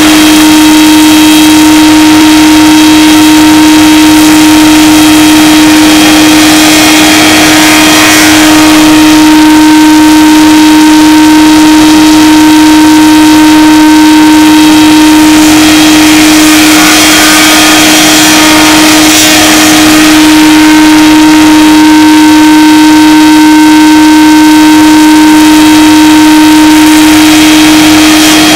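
Wood shaper (spindle moulder) running at speed with a loud, steady hum, its raised-panel cutter cutting the curved edge of a wooden panel; a rushing cutting noise swells and fades several times as the panel is fed past the cutter.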